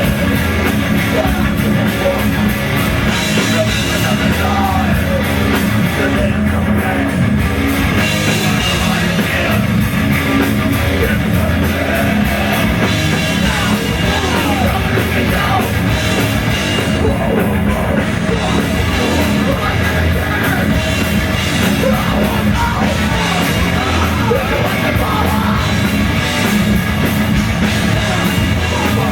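Live rock band playing loudly: distorted guitars, bass and drum kit, with shouted singing.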